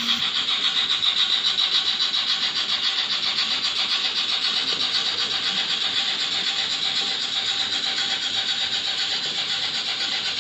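Märklin model steam trains running on the layout: a steady hiss with a fast, even beat of about four pulses a second.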